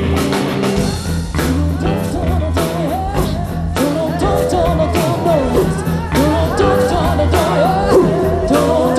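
Live rock band playing, with drum hits about twice a second and a wordless sung line bending over the band.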